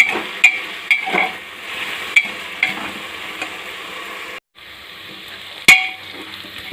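Vegetables frying in hot oil in a pressure cooker, sizzling steadily, while a spoon stirs and knocks against the metal pot about twice a second for the first few seconds. The sound drops out for a moment at about four and a half seconds, and there is one sharp clank near the end.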